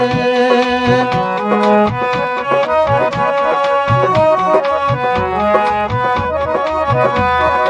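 Instrumental break in a Punjabi folk song: a reedy melody instrument plays a quick run of notes over a drum beat, with no singing.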